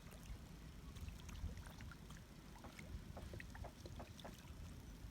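Faint water sounds, small plinks and splashes at the surface, over a low wind rumble on the microphone.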